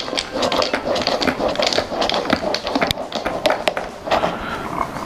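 Milk being frothed in a mini French press by pumping the plunger up and down, with ice cubes in the carafe: quick irregular clicks and sloshing, which thin out about four seconds in.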